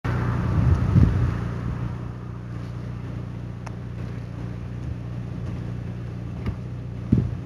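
A steady low hum under faint outdoor background noise, a little louder in the first second or so, with a few faint clicks.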